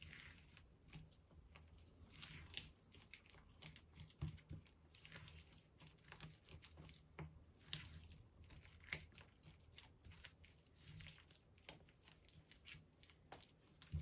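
Silicone spatula stirring a soft butter, sugar and spice mixture in a ceramic bowl: faint, irregular scraping strokes against the bowl.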